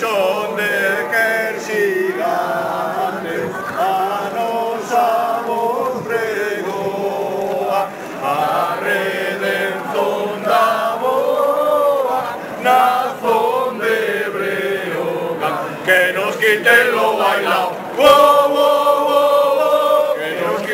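A small crowd singing a chant together in chorus, voices carrying a tune with drawn-out notes, a little louder near the end.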